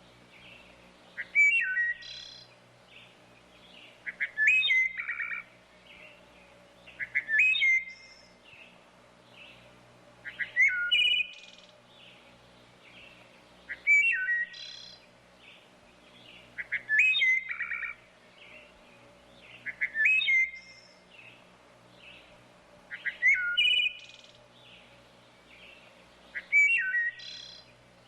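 Wood thrush singing: short fluty song phrases, each a few clear notes followed by higher trilled notes, repeated about every three seconds.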